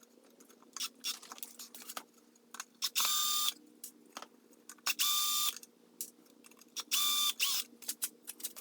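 Power drill run in three short bursts about two seconds apart, each a steady whir lasting about half a second, with small clicks and handling noises between.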